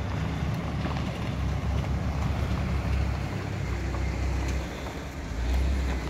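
Hyundai Terracan 4WD crawling past close by on a dirt track, its engine running at low revs, mixed with wind rumbling on the microphone. The rumble swells briefly near the end as the vehicle draws alongside.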